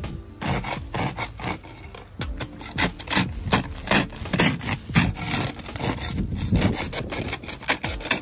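A spatula scraping and chipping thick ice off a car's glass in rapid, uneven strokes, the ice breaking away in chunks.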